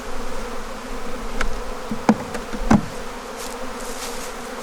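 Honeybees buzzing in a steady hum around open hives, the colony stirred up by the frames being moved. A few sharp clicks sound about a second and a half to three seconds in.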